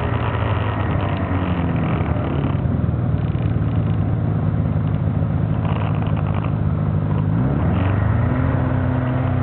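Snowmobile engine running steadily, its pitch dropping about two seconds in and rising again near the end as the throttle opens.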